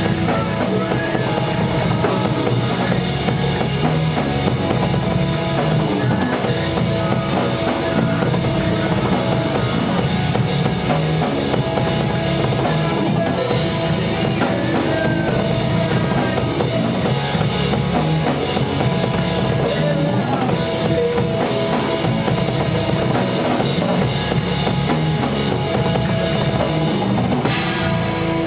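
A band playing rock music, the drum kit and bass drum to the fore, steady throughout.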